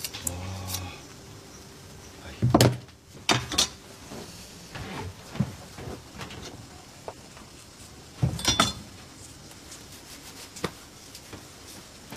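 Kitchen work: scattered small clicks and clatters, with louder knocks about two and a half seconds in and again about eight seconds in.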